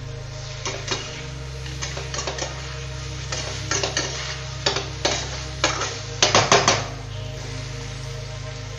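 Steel spatula scraping and clattering against a stainless steel frying pan while a thick mutton fry is stirred: a run of irregular scrapes, loudest in a quick cluster about six seconds in, then stopping.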